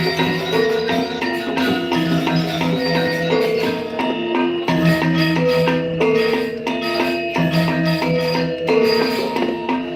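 Balinese gamelan music: metallophones struck in many quick notes over longer ringing lower tones.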